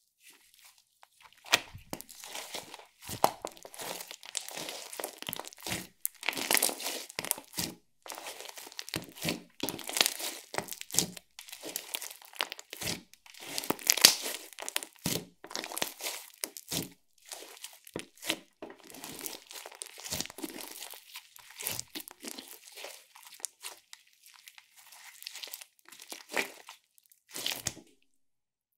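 Hands kneading, squeezing and stretching a large lump of clear slime mixed with glitter, giving irregular sticky crackles, pops and clicks that stop suddenly near the end.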